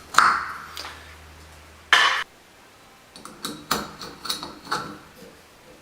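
Shower handle knob being fitted back onto the valve stem: a sharp clink near the start, a short scrape about two seconds in, then a run of small clicks and taps.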